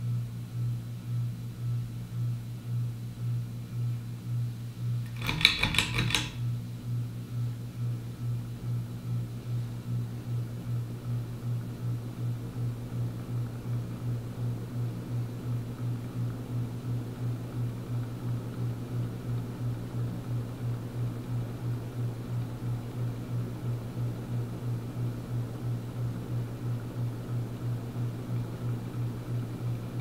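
SMC DC42 42-inch ceiling fan running, its motor giving off a strong steady hum that pulses about twice a second; the fan is typical of 1990s SMC: pretty noisy, with rather a lot of hum. A short burst of clicks about five seconds in.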